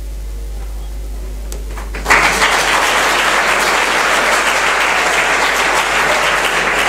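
Audience applause breaks out suddenly about two seconds in, after a short hush with only a steady low hum, and keeps going.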